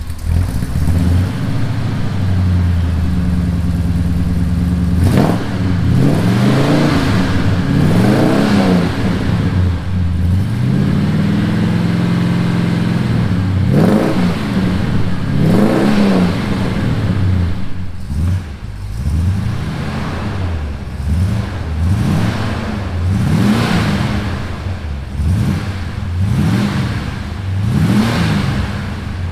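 Chevrolet square-body pickup's engine idling and revved in short throttle blips, first through its loud, blatty exhaust, then, from about 18 seconds in, quieter through the same exhaust with glass pack mufflers added, with a run of about six quick rev blips.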